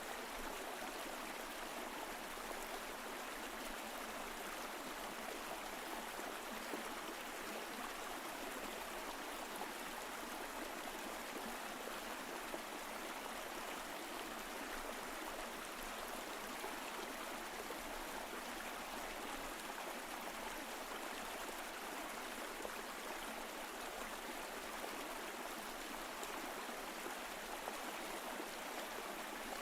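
Mountain stream flowing over rocks: a steady rush of water, even throughout.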